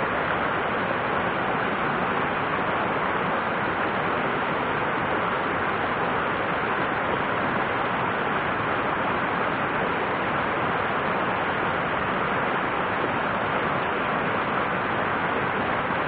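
Mountain stream tumbling over boulders in small whitewater rapids into a pool: a steady, even rush of water.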